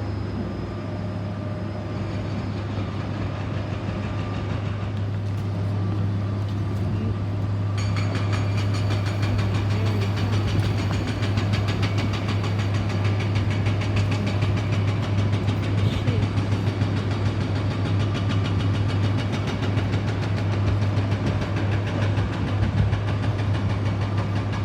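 Heavy engine running steadily with a strong low hum. About eight seconds in it grows louder and a busy rattling clatter joins it.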